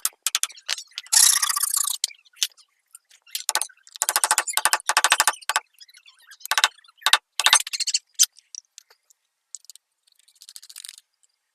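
Hand tool scraping wood in repeated bursts of rapid, ratchety strokes, stopping and starting several times, with a fainter burst near the end.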